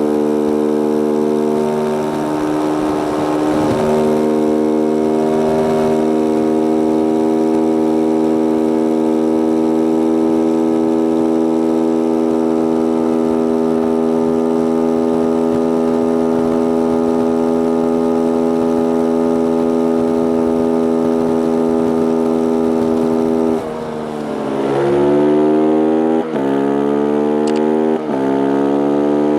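Stock Beta RR 125 LC supermoto's single-cylinder four-stroke engine held flat out at high revs near top speed, with a steady note and wind rush for most of the stretch. Near the end the revs drop suddenly, then climb again in three rising pulls, each cut short by a drop in pitch: the bike accelerating back up through the gears.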